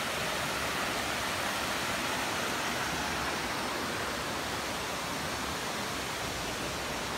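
Shallow creek water spilling over low shale rock ledges in small cascades, a steady rushing splash that holds even throughout.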